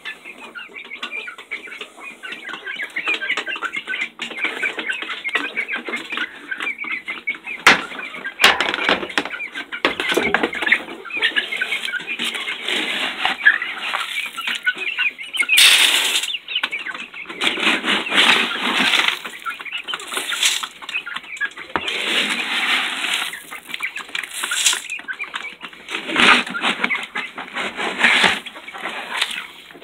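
A large flock of chickens clucking and chattering together, with repeated louder bursts of rustling and a couple of sharp clicks.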